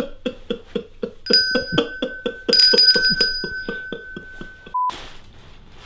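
Small brass handbell rung quickly and over and over, about four strikes a second, to call someone. The ringing grows louder and denser about two and a half seconds in, then stops, and a short beep follows near the end.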